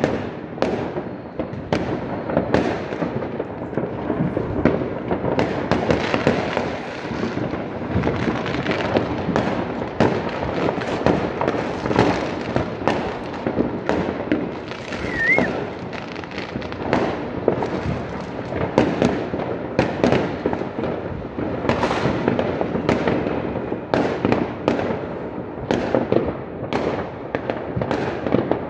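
Fireworks going off all over a city: an unbroken stream of overlapping bangs, pops and crackle from rockets and firecrackers, with no single burst standing out above the rest.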